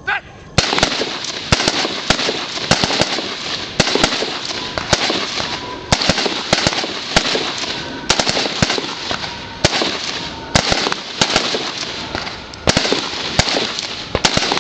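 A line of carbines fired from the prone position: an irregular string of rifle shots from several shooters, sometimes close together, beginning about half a second in. Each shooter is firing a five-round string.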